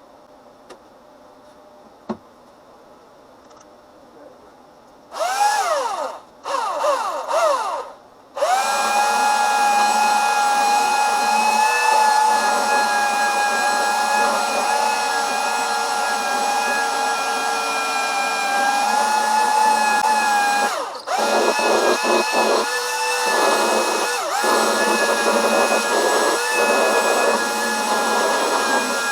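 Electric sander started in three short bursts, its motor whine rising each time, then running steadily as it sands. It stops briefly about two-thirds of the way through, and its sound wavers after it restarts.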